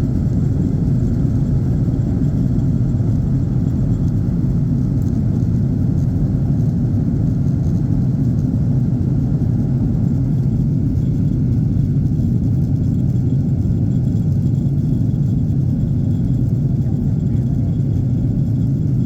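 Boeing 737-900ER jet airliner, its CFM56-7B turbofan engines running with a steady, loud low rumble.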